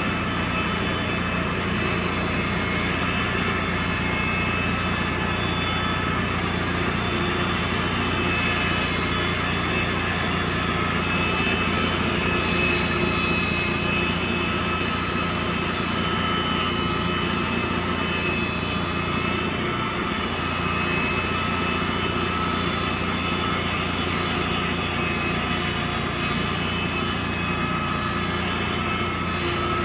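Wood-Mizer portable band sawmill running steadily, its engine and band blade making an even drone with a slight swell about twelve seconds in.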